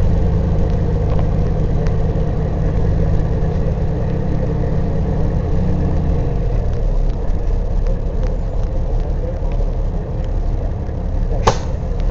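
Peterbilt 379 truck's diesel engine running as the truck rolls along, heard from inside the cab; its low note drops lower about halfway through. A single sharp click near the end.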